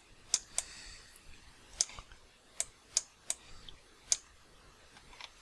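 Computer mouse buttons clicking about seven times at irregular intervals while sculpting on a computer.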